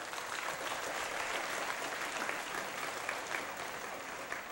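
Stadium crowd at a football match applauding and clapping. It swells at the start, holds steady, and eases off near the end.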